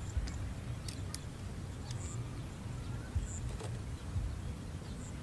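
Steady low rumble, typical of wind on the microphone, with a few short high bird chirps spread through it. Light clicks come from wire being wound around bamboo stakes.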